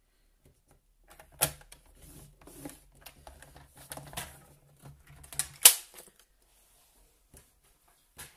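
Card stock being scored and turned by hand: scratchy scrapes and light taps, with two sharp clicks, one about a second and a half in and the loudest a little after five and a half seconds.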